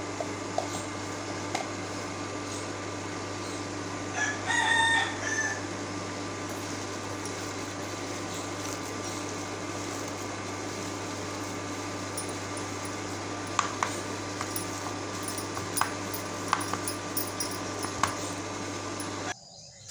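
Steady electrical hum from a kitchen appliance or fan, cutting off suddenly just before the end. About four seconds in, a loud pitched call of just over a second stands out. Between about 13 and 18 seconds there are several light taps and clicks of hands working a dal filling in a steel bowl.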